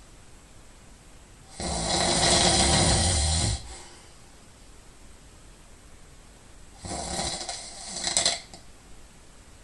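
A sleeping person snoring: one long, loud rasping snore about two seconds in, then a second, weaker and more broken one about five seconds later.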